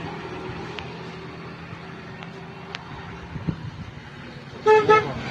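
A vehicle engine runs steadily, then about four and a half seconds in a horn gives two short, loud beeps.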